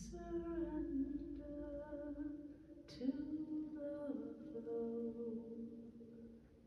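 Wordless vocal toning: a voice sings long held notes that step between pitches, in two phrases, the second beginning about three seconds in.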